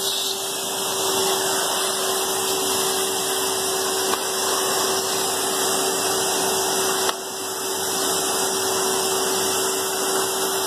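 Henry cylinder vacuum cleaner running steadily, a loud even rush of air with a steady motor hum, with a short dip in level about seven seconds in.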